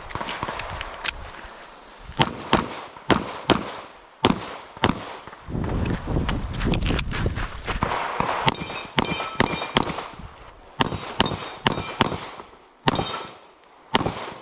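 Walther Q5 Match SF pistol fired in rapid pairs and strings of shots, with short pauses between the groups. Some of the shots are followed by a brief metallic ring.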